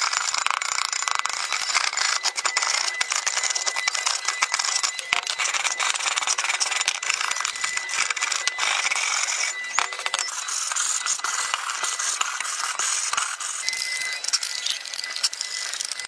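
Flat screwdriver tip scraping rust and scale off a rusted metal cassette-stove burner head: a continuous rapid rasping with many small clicks and ticks.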